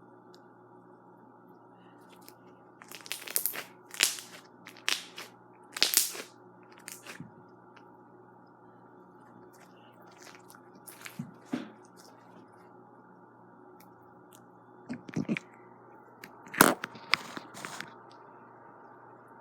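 Slime being squeezed and pressed by hand, giving clusters of sharp crackles and pops with quiet pauses between. The loudest pop comes a few seconds before the end.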